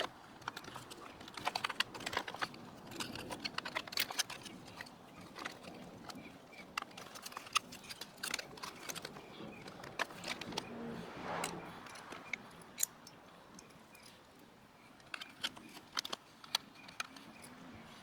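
Irregular small clicks, taps and light rattles of hands handling a mobility scooter's plastic parts, wiring connectors and controller board.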